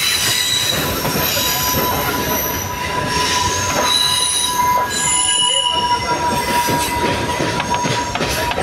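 Wheels of a Sri Lanka Railways Class S11 diesel multiple unit squealing against the rails, a steady high-pitched squeal with shorter, higher tones coming and going, over the running rumble and rattle of the train heard from its open doorway.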